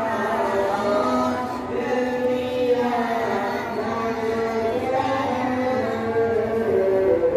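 A voice chanting a slow melody with long held notes that bend gently in pitch.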